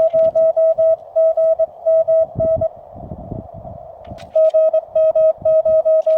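Morse code (CW) from a Weber MTR QRP transceiver: a single steady tone keyed in dots and dashes, stopping for about a second and a half partway through, then resuming.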